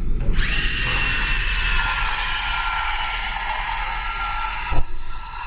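Vacu-Mixer automated VPS mixing machine starting up and running, mixing heavy-body impression material, with a steady high whine that slowly sinks in pitch. A single sharp click comes near the end.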